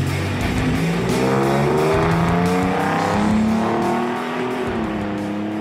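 Ford F-150 Raptor's 3.5L twin-turbo EcoBoost V6, breathing through a Flowmaster FlowFX muffler, accelerating away, its exhaust note climbing in pitch and easing slightly near the end, with background rock music.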